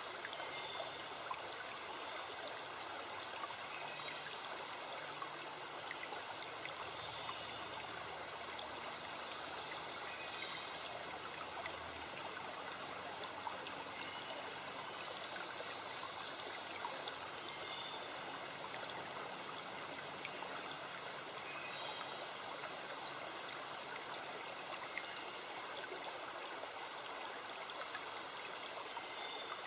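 Stream water running steadily, with a few faint high steady tones above it.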